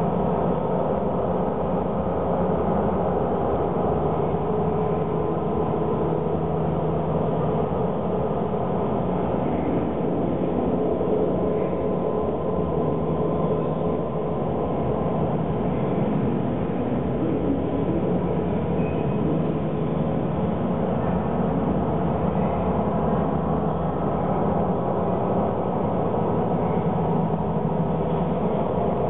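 Soundtrack of a video art installation: a steady, dense drone with several held tones over a noisy bed, unchanging in loudness.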